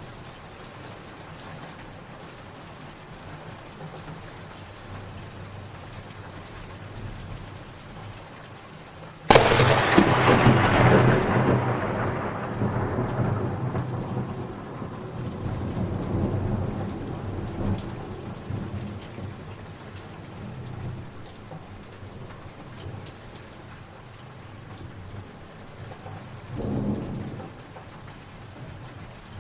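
Steady rain falling, with a sharp thunderclap about nine seconds in that rolls and rumbles away over several seconds, and a shorter, fainter rumble of thunder near the end.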